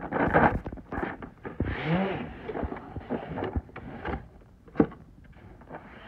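Cardboard box handled and opened, with a black plastic tool case sliding out of it: cardboard rustling and scraping, with scattered knocks and clicks of the plastic case. One sharp click comes a little before five seconds in.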